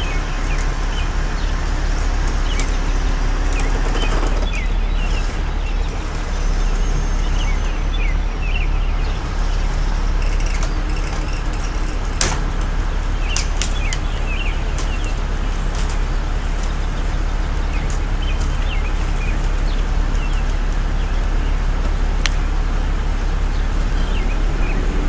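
Century 1150R rotator wrecker's diesel engine running steadily as the boom lifts a wrecked SUV out of a culvert, with birds chirping now and then and a sharp click about twelve seconds in.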